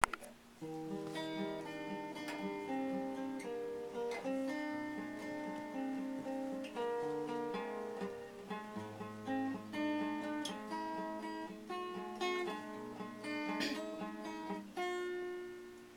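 Acoustic guitar playing a chordal introduction, with notes plucked and left to ring. It starts about half a second in.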